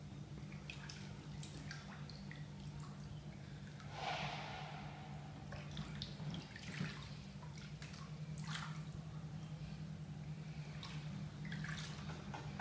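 Bathwater sloshing and dripping as a person shifts about in a filled bathtub, with scattered drips and small splashes and a larger slosh about four seconds in. A steady low hum runs underneath.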